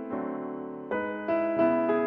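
Background piano music: soft chords, a new chord struck about a second in.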